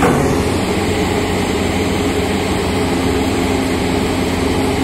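Diesel engine of an IMT 215 tracked rotary piling rig running steadily, a low, even drone.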